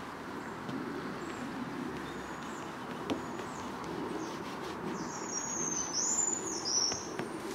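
A small bird calls with a high chirping song for about two seconds, starting about five seconds in, over steady background noise.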